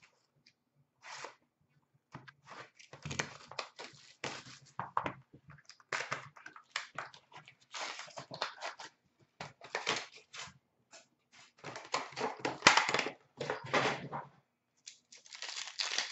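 Cardboard and wrappers of a hockey trading-card box being torn open and crinkled by hand, in a series of short, irregular ripping bursts, loudest about twelve to thirteen seconds in.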